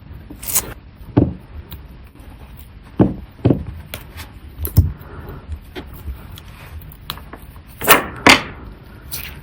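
A series of about seven irregular sharp knocks and clicks of hard objects against a hard surface, the two loudest coming close together near the end.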